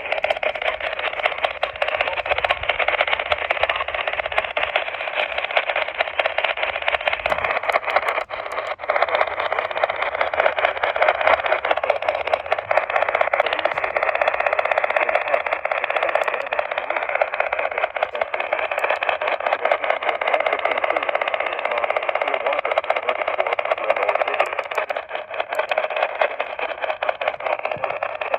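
Steady radio static: an even hiss and crackle held within a radio's narrow audio band, with no clear alert tones or voice coming through.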